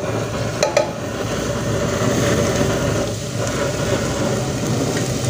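Wood fire burning under a steel cooking pot on a clay stove: a steady rumbling roar of flames, with a couple of sharp clicks about three-quarters of a second in.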